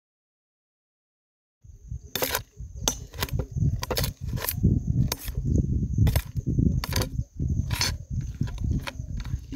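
After about a second and a half of silence, a spatula stirs and scrapes paneer and tomatoes frying in a kadai, with many sharp clacks of metal against the pan.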